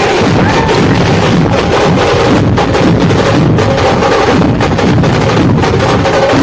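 Dhol-tasha troupe drumming: big barrel drums and sharp stick-beaten strokes played loud and dense without a break.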